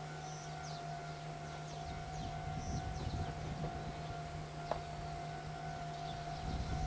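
Open-air ambience at a rural station with no train sound yet: a steady high insect buzz and a steady thin tone run throughout, with low wind rumbles rising and falling and a single sharp click a little under five seconds in.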